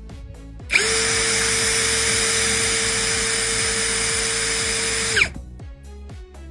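Yupai D10A cordless lithium drill running free in its slow gear for about four and a half seconds during a no-load speed test, reading about 417 rpm. It is a steady motor whine that starts abruptly under a second in and cuts off near the end. Quiet background music plays beneath it.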